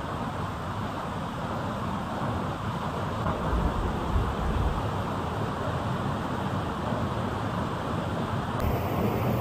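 Steady rushing roar of a large waterfall's falling water, with wind buffeting the microphone in low rumbling gusts around the middle. Near the end the sound shifts abruptly to a brighter hiss.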